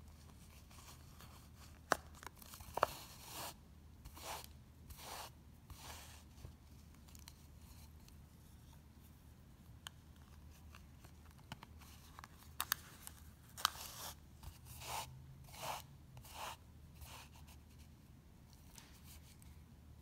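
Yarn being drawn through a CD loom's yarn warp with a metal weaving needle: soft, irregular rustling strokes in two bunches, with a few sharp clicks among them.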